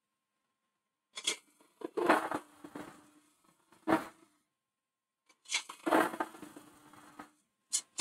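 Hollowing tool cutting inside a spinning holm oak hollow form on a wood lathe: about five short bursts of scraping, chip-cutting noise with the lathe's hum under each, separated by dead silence.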